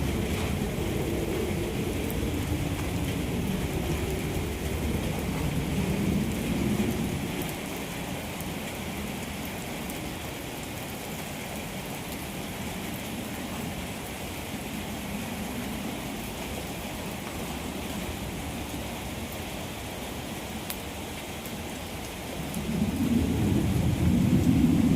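Steady rain falling, with low rumbles swelling up during the first several seconds and again near the end.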